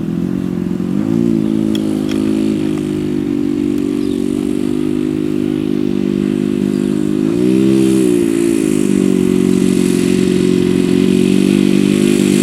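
Engine and propeller of a radio-controlled Cessna 182 model plane droning steadily in flight. The pitch swells up and falls back briefly about a second in, and more widely around eight seconds in, after which it runs a little louder.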